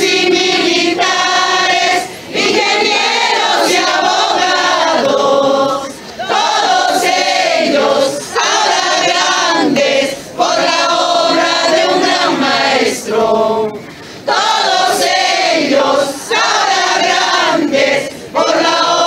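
A crowd of men and women singing together in unison, unaccompanied, in long phrases broken by short pauses for breath every few seconds.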